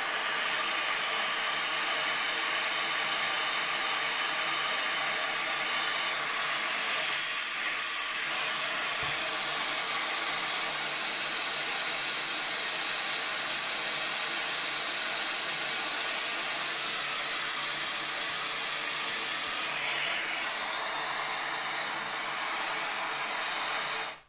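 Pink noise test signal played through a Xiaomi Mi 10T Pro phone's speakers: a steady, loud hiss whose treble dips briefly about seven seconds in, then cuts off suddenly at the very end.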